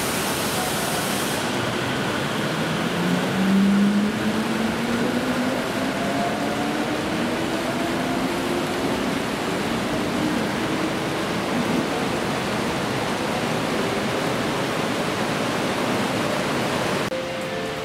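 A Toyo Rapid Railway 2000 series electric train accelerates away from the platform: its traction motors whine, rising steadily in pitch, over a steady rush of wheels on rail.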